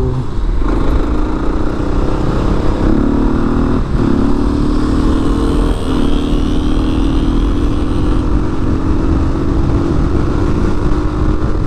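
1998 Kawasaki KLR250's single-cylinder four-stroke engine running under way. Its pitch climbs gradually, with two brief dips about four and six seconds in.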